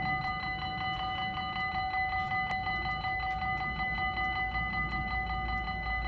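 Dutch AHOB level-crossing warning bells ringing in a rapid, even, metallic pulse as the half-barriers come down, warning that a train is approaching.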